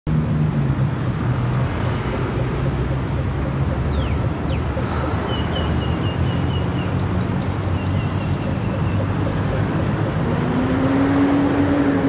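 Steady city traffic noise, with small birds chirping in a tree above it: a few quick falling calls about four seconds in, then runs of short repeated notes until about nine seconds in. A low hum swells near the end.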